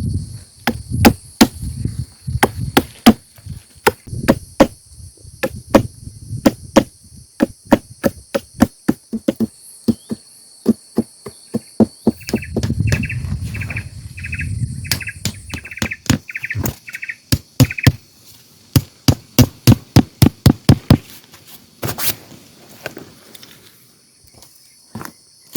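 A steady high insect drone, like crickets, with repeated sharp knocks of blows being struck over it, about two to three a second. The knocks stop about three quarters of the way through, and a single louder crack follows. A short series of quick chirps is heard midway.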